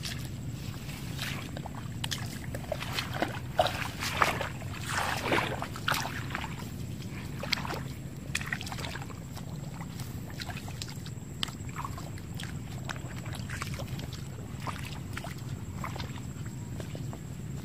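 Bare feet wading and splashing through shallow muddy water, with a flurry of louder splashes a few seconds in, over a steady low rumble.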